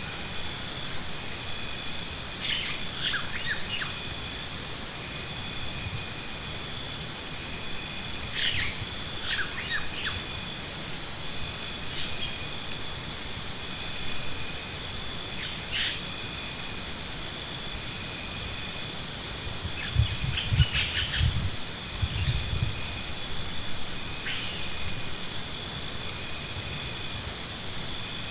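An insect chorus: rapid pulsed chirping that swells and fades in long trains about every eight seconds, over a steady high-pitched whine. A few short bird chirps come through, and there are brief low thuds about two-thirds of the way in.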